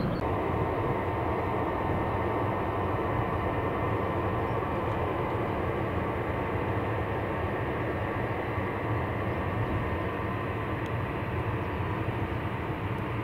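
Boeing 747 jet engines running, a steady rumble with a faint whine that slowly fades.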